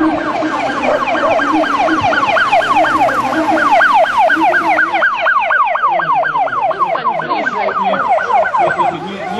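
Police vehicle siren in fast yelp mode: a rapid rising-and-falling wail at about four sweeps a second. It stops shortly before the end.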